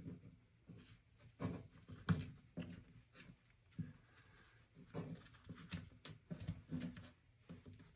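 Paper towel rustling and crinkling as a bundle of matches is rolled up tight in it by hand, in short, irregular scrapes with light taps of fingers on the bench top.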